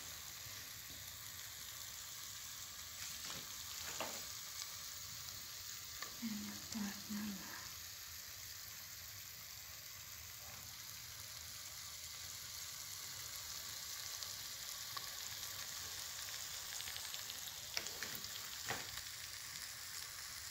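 Chicken wings and potatoes sizzling on a hot baking tray: a steady, faint hiss, with a few light clicks.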